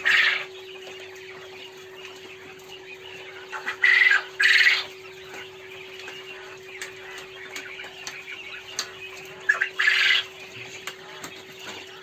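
Poultry in a coop squawking in three loud, short bouts over a constant faint chatter of birds, with a steady hum underneath.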